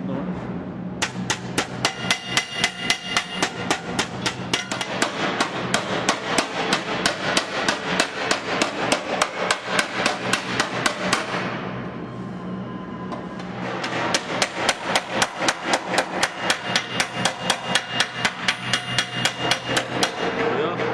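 Hand hammer rapidly striking a sheet-metal body panel, folding its edge flange over on a bench, a steady run of about three to four sharp ringing metal blows a second. The blows stop for a couple of seconds midway, then start again.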